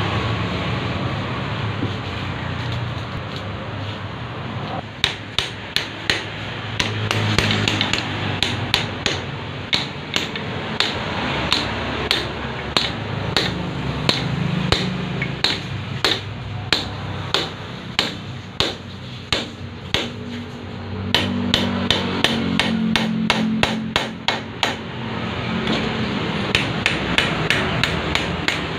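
Hammer tapping a ball bearing onto a freshly turned steel shaft: sharp metal-on-metal strikes, about two a second in runs with short pauses, starting about five seconds in, over a steady background hum.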